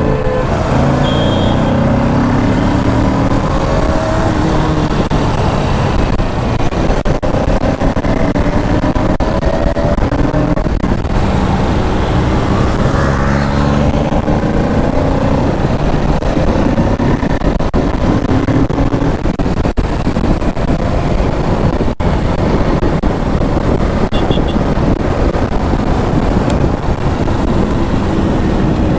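Kawasaki Ninja 650's parallel-twin engine heard from the rider's seat at road speed, its revs climbing and dropping back again several times, over a steady rush of wind noise.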